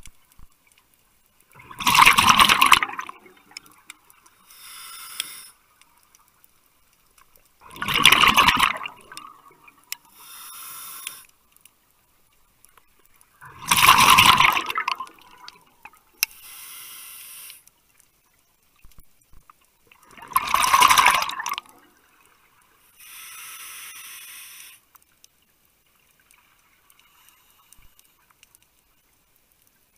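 Scuba diver breathing through a regulator underwater, about every six to seven seconds. Four loud bursts of exhaled bubbles, each followed a few seconds later by a quieter hiss of inhaling. The breathing pauses near the end.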